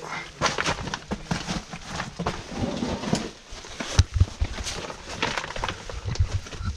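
Someone crawling over loose rock rubble in a low cave passage: irregular scraping, shuffling and knocks of rock and gear. A sharp knock about four seconds in is the loudest.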